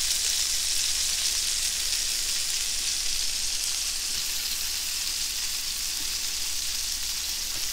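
Bacon-wrapped burger patty sizzling steadily as it sears in its own rendered bacon fat on the hot plate of a Cinder Grill electric smart grill set to full searing heat.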